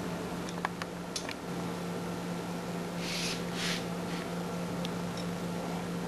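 Steady low hum, with a few faint clicks in the first second or so and two short hissing rustles about three seconds in, the kind made by handling a bowl of dry cat food.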